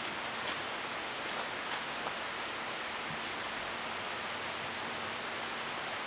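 Steady even hiss of night-time background noise, with a faint low hum and a couple of faint ticks; no owl call.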